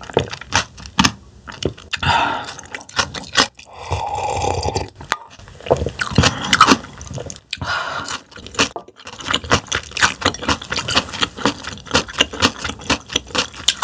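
Close-miked slurping of cold doenjang broth from a glass mug, then chewing of a mouthful of raw damselfish slices. The second half is a quick, dense run of wet, crunchy clicks from the fish's hard bones.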